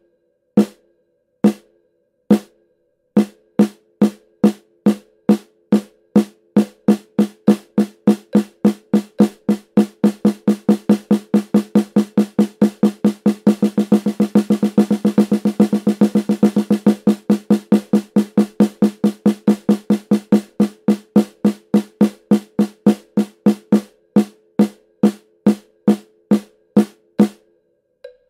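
Snare drum struck with wooden drumsticks in a change-up exercise. The strokes start slow and evenly spaced, speed up step by step to a fast, roll-like stream in the middle, then slow back down step by step and stop shortly before the end.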